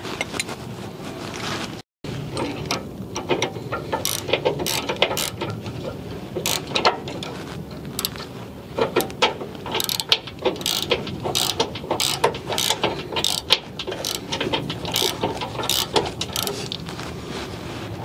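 Ratcheting wrench clicking in quick, irregular runs of strokes as a suspension nut is tightened by hand.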